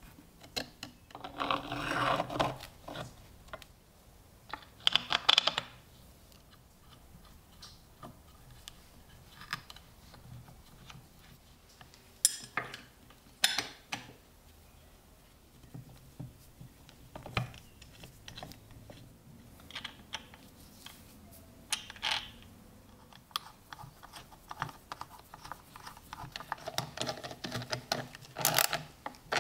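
Metal and wooden parts of a tobacco cutter being handled and fitted together: scattered clicks, taps and light knocks. There is a stretch of rubbing on wood about two seconds in, and a quick run of clicks near the end as a socket wrench tightens the pivot nut.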